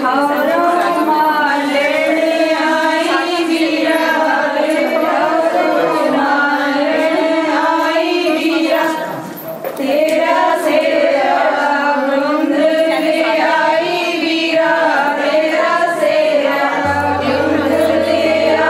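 Background music: a sustained sung vocal line over soft accompaniment, dipping briefly about nine seconds in, with a low bass line entering near the end.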